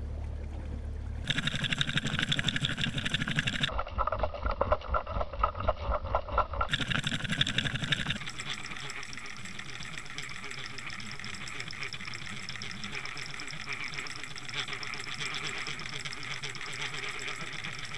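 Boat motor noise heard through an underwater camera: a steady mechanical hum and whine that changes sharply a few times in the first eight seconds, then holds steady.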